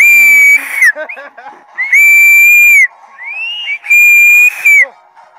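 Loud, shrill whistle blasts: three long held blasts at one high pitch, each sliding up at the start and dropping at the end, with shorter rising-and-falling whistles between them.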